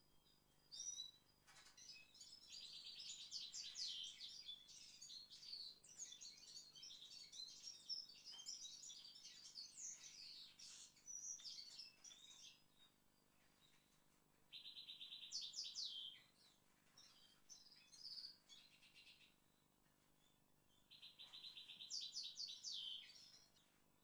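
Faint songbird song. A long stretch of varied twittering comes first, then three shorter phrases with pauses between them, each opening with a fast, even trill and running into higher notes.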